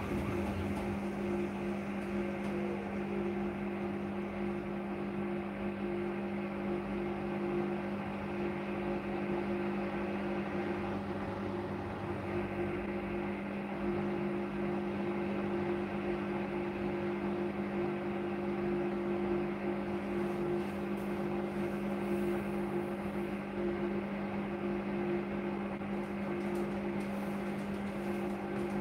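Hotpoint NSWR843C front-loading washing machine on its 60°C wash, the drum motor humming steadily as the wet, sudsy laundry tumbles. About two seconds in, a short falling whine as the drum slows from a faster turn.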